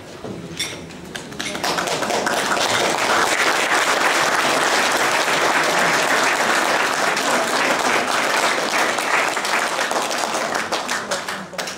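A few sharp glass clinks, then a room full of people applauding, starting about a second and a half in, holding steady and thinning out near the end.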